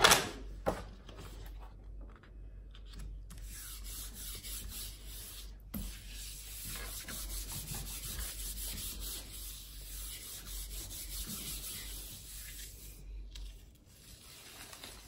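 A hand rubbing and pressing the back of a sheet of mixed-media paper laid on an inked gel printing plate: a steady dry rubbing for about ten seconds, burnishing the paper so the paint transfers. It opens with a sharp knock and eases off near the end.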